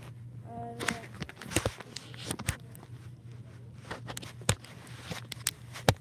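Scattered knocks and bumps of uneven spacing, from a phone being handled and moved about, with the loudest bump near the end. A short voiced sound comes about half a second in, over a steady low hum.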